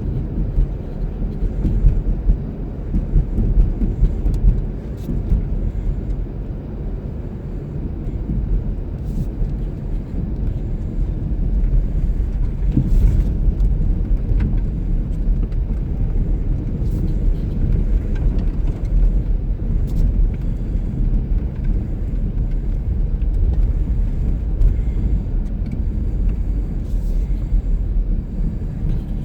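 Blizzard wind blowing over the microphone: a loud, gusting low rumble that swells and eases every few seconds.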